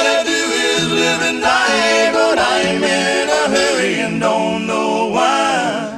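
Closing bars of a country song, several voices singing drawn-out notes together in harmony.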